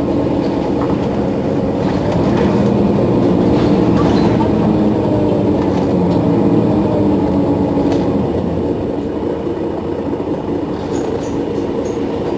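Mercedes-Benz Citaro Facelift city bus's rear-mounted engine idling steadily while the bus stands at a stop, easing slightly in level past the middle.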